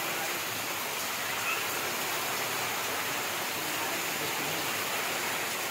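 Heavy rain pouring down steadily onto waterlogged ground, a dense, even hiss with no let-up.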